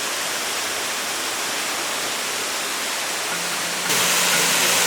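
Steady rushing of falling water from a cave waterfall, jumping louder about four seconds in.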